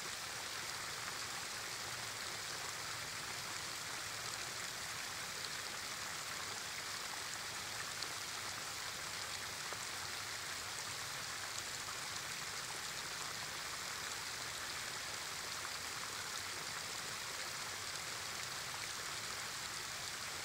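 Small waterfall: a thin stream of water spilling over a low stone ledge and splashing onto the rocks and shallow pool below, with a steady, even splashing rush.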